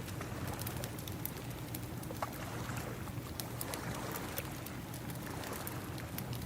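Crackling wood fire layered over ocean waves. Scattered sharp pops and snaps ride on a steady wash that swells gently.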